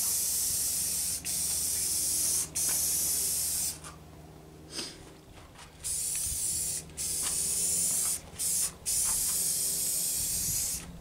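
Aerosol can of spray paint hissing in a run of short bursts, each one to two seconds long, with a pause of about two seconds about four seconds in, as a thin coat of satin paint goes onto the bench slats.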